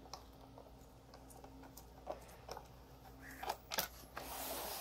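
Faint scattered clicks of a Phillips screwdriver turning a battery-cover screw on the underside of a Roomba, with a few sharper clicks about three and a half seconds in and a soft scraping rustle near the end.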